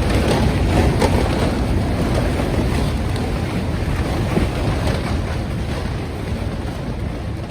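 Strong gale-force wind blowing and buffeting the microphone with a loud, steady rushing roar.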